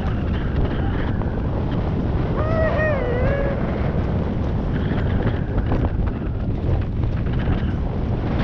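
Wind buffeting an action camera's microphone while a Marin hardtail mountain bike rolls fast over a dirt woodland trail, its tyres running on the ground, with knocks and rattles over bumps. About two and a half seconds in, a brief wavering pitched sound lasting about a second.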